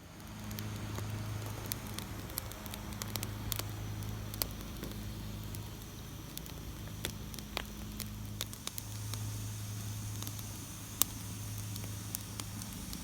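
Food sizzling in a hot pan, with scattered sharp pops and crackles of spattering fat, over a steady low hum.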